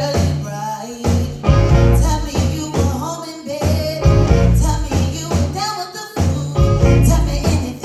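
Live band playing a song with singing over a driving bass and drum rhythm.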